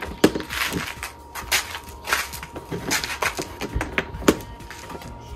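Clear plastic storage box and its snap-on lid being handled and shut in a van's cargo area: a run of irregular knocks and clatters.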